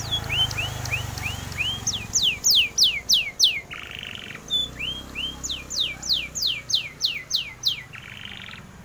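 Domestic canary singing in fast runs of repeated whistled notes, some sweeping sharply down and some rising. Two short buzzy rattles come about four seconds in and near the end.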